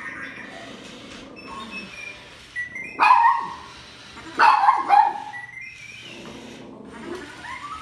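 Dog barking at a remote-controlled R2-D2 toy robot: one bark about three seconds in, then two more about a second and a half later. Between the barks come short electronic chirps and whistles from the robot.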